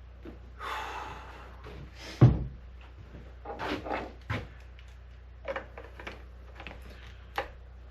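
Knocks, clicks and clunks from handling a chainsaw and working at its fuel cap, with a brief hiss about a second in and one sharp, loud knock a little after two seconds.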